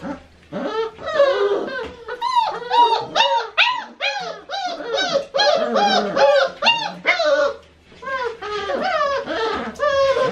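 Four-week-old Great Dane puppies whining and crying, a rapid string of high cries that rise and fall in pitch, a few each second, with a brief pause near eight seconds.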